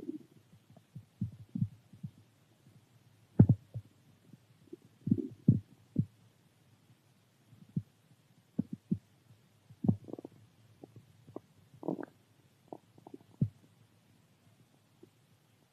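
Human stomach growling and gurgling from hunger, in short irregular gurgles of varying strength, the loudest about three and a half seconds in. The gurgles stop a couple of seconds before the end.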